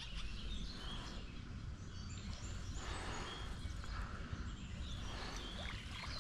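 Outdoor ambience at a pond: a steady low rumble and hiss, with a few faint, brief bird chirps.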